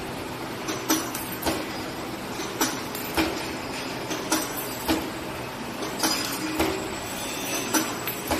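Automatic R-pin wire bending machine running: a steady mechanical noise with a pair of sharp metallic clacks, about half a second apart, repeating at an even pace of roughly one pair every 1.7 seconds.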